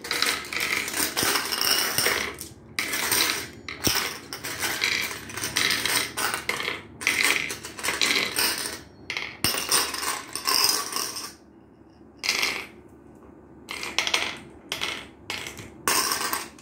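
Glass marbles clicking and clattering as they are dropped one by one into the pits of a wooden mancala board and knock against the marbles already there. The clicks come in quick runs, with a brief lull about three quarters of the way through.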